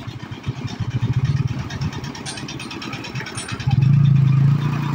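Diesel engine of a Tata lorry pulling across the tracks at close range, with a motorcycle engine idling beside it. The lorry's engine becomes a loud steady drone near the end as the cab comes alongside.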